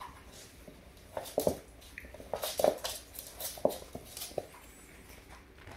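A cat and a small dog scuffling on a hardwood floor: a quick flurry of claws skittering and scraping on the boards and paws tapping, between about one and four and a half seconds in.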